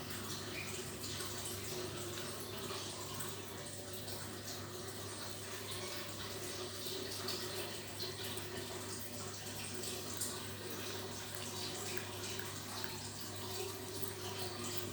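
A cat licking ice cream: small wet lapping and smacking sounds, with a few louder licks, over a steady low electrical hum.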